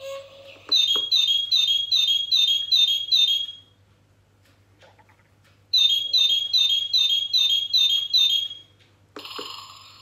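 Bird-song clock playing recorded birdsong through its small speaker: a bright two-note phrase, high then lower, repeated about seven times at roughly three a second. It comes twice with a gap of about two seconds between, then a different bird sound starts near the end.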